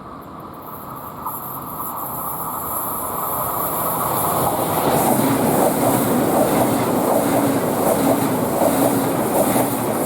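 A train approaching and passing close by, the rumble of its wheels on the rails growing louder over the first five seconds and then staying loud.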